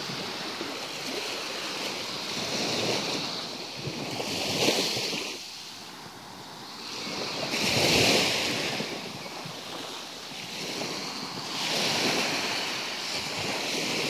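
Small Black Sea waves washing up onto a sandy, shell-strewn beach, the surf swelling and fading every three to four seconds.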